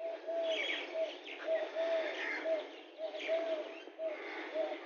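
Morning chorus of birds in trees: one bird repeats short low notes of the same pitch, about three a second, some drawn out a little longer, while other birds chirp and call at a higher pitch over them.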